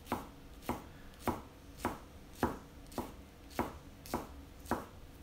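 Kitchen knife slicing thin strips off a rolled stack of basil leaves, each cut ending in a knock on a wooden cutting board. About nine even strokes, a little under two a second.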